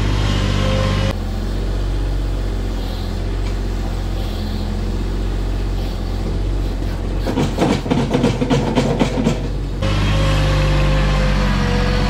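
Bobcat MT100 stand-on mini track loader's engine running steadily, with a steady whine over it at the start and near the end. In the middle, for a couple of seconds, a dense run of rattling, clattering knocks.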